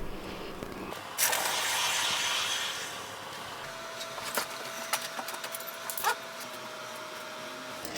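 Hot file steel quenched in water, hissing for about a second and a half before fading, with a few faint clicks afterwards: the hardening step of a fire striker.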